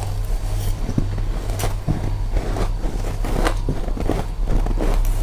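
Close-up crunching and chewing of powdery freezer frost: many irregular crisp crunches, over a steady low hum.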